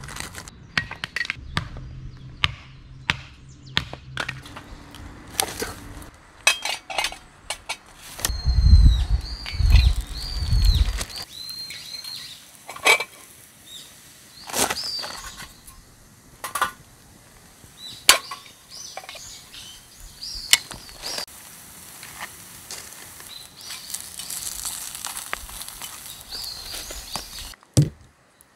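Camp-cooking handling sounds at a small folding wood stove: a string of sharp clicks, knocks and wooden cracks as kindling sticks, a metal pan and a wooden spatula are handled, with a louder knock near the end.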